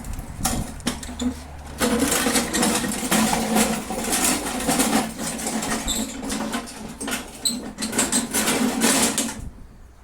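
Small push lawn mower engine running, with a lot of irregular rattling, then cutting off abruptly near the end.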